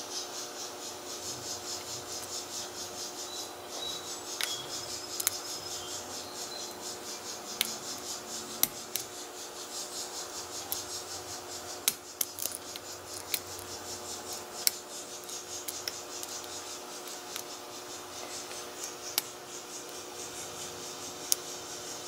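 A steel hook pick (a Peterson Gem) scraping and ticking against the spool security pins inside an Iseo five-pin padlock cylinder, held under tension while being single-pin picked. Scattered sharp clicks come every second or so.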